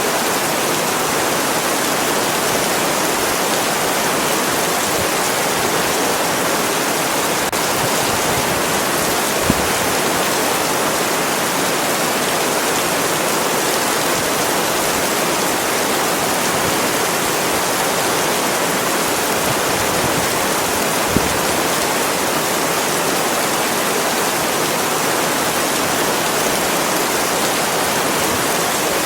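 Steady heavy rain, an even, unbroken hiss. Two brief low knocks stand out, about ten seconds in and again about twenty-one seconds in.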